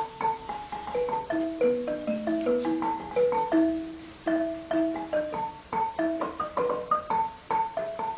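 Background music: a melody of quick, struck notes on tuned mallet percussion, each note fading, over a light ticking percussion beat.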